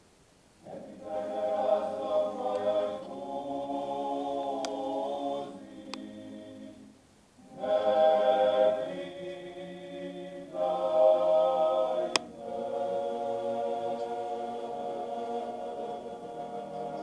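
Male klapa group singing a cappella in close harmony. The singing begins about a second in and goes in phrases, with a short breath pause about seven seconds in and another dip about ten seconds in.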